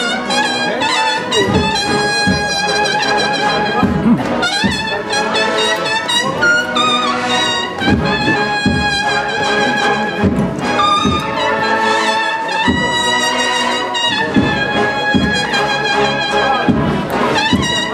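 Brass band playing a Semana Santa processional march, with trumpets and trombones holding sustained notes over regular drum strokes.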